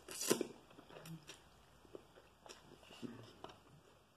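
A person slurps a forkful of instant cup noodles about a quarter second in, then chews quietly, with small scattered mouth clicks.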